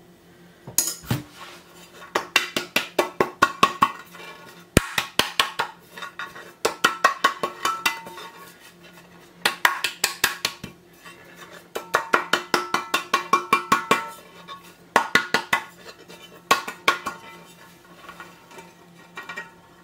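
White ceramic baking dish being tapped over and over to spread flour across its buttered surface and knock out the excess, in quick runs of sharp, ringing taps, several a second, with short pauses between bursts.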